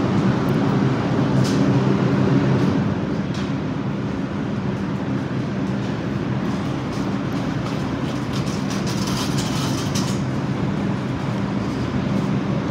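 New York City subway train running, a steady rumble that eases slightly about three seconds in, with scattered clicks and a cluster of sharp clicks and rattles around nine seconds in.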